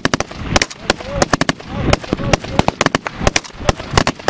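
Rifle fire from several guns, single shots and short strings of shots, irregular, several sharp cracks a second. Voices shout faintly between the shots.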